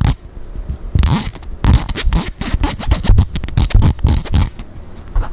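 Teeth of a comb scraped close to the microphone in quick, irregular scratchy strokes, some in rapid runs like a zipper.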